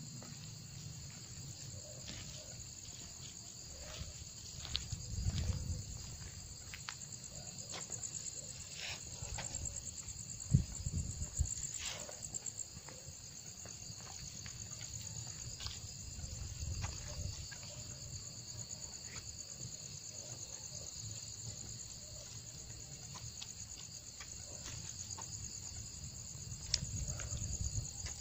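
Crickets chirping steadily, with low rumbling thumps and rustling from someone walking and handling the recording device; the loudest thump comes about ten seconds in.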